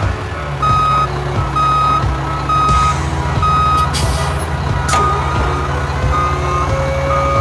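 Dump truck sound effect: an engine running with a reversing alarm beeping about once a second as the truck backs up. Around four seconds in comes a short hiss and a clunk, then a faint rising whine as the dump bed starts to tip.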